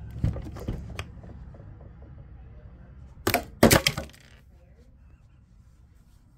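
A few light knocks, then two loud sharp cracks about half a second apart, a little over three seconds in.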